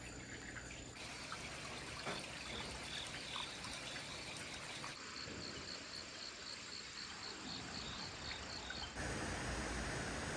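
Running water trickling steadily, with a rhythmic high chirping call repeating about four times a second over it. Near the end the sound changes to a louder, steadier hiss.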